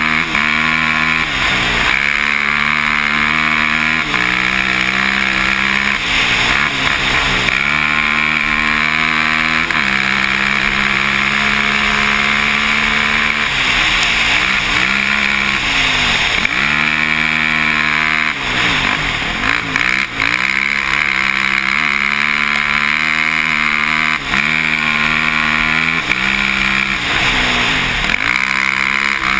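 Can-Am quad's engine running hard on a dirt trail, its pitch climbing, holding and dropping back again and again as the rider works the throttle and gears.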